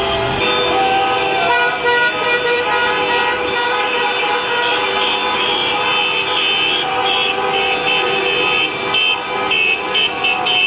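Many horns sounding together as overlapping steady tones at different pitches, some held and some cut into short toots, with a quick run of toots near the end.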